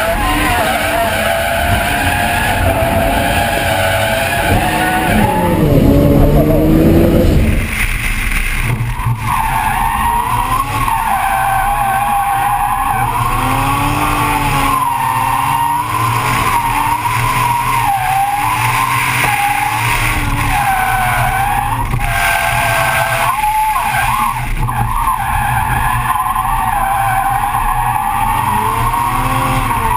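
Nissan S13's turbocharged RB30DET straight-six drifting with its tyres skidding, the engine revving up and down as the throttle is worked through the corners. It is loudest during a rising rev about six seconds in, heard from inside the cabin; after about eight seconds it is heard from outside the car, a wavering exhaust note over tyre noise.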